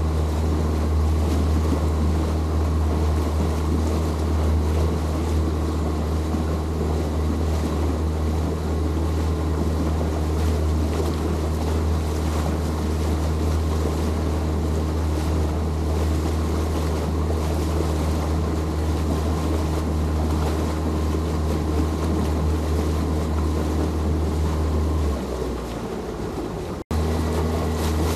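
A boat's motor running steadily under way, a deep drone with a rushing wash of water and wind over it. Near the end the deep drone fades, the sound breaks off for an instant, and then it resumes as before.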